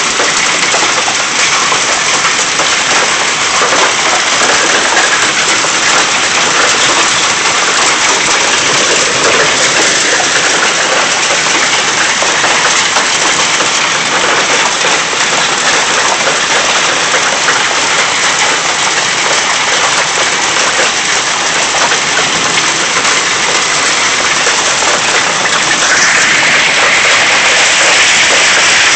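Heavy rain and hail pelting down in a thunderstorm: a dense, steady wash of drops and hailstone hits. It gets a little louder near the end.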